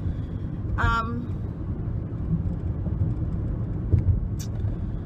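Steady low rumble of a car driving along, with a brief vocal sound about a second in.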